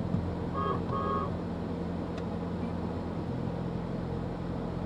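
Steady engine and road hum heard inside a car, with two short horn beeps about half a second to one second in.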